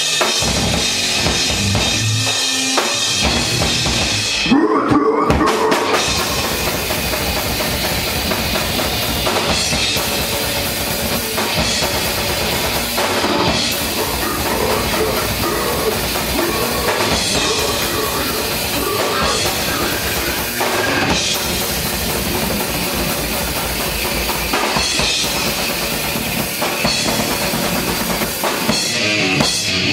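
Live heavy metal band playing loud: a drum kit with rapid bass-drum strokes under electric guitars. There is a brief break about four and a half seconds in before the full band comes back in.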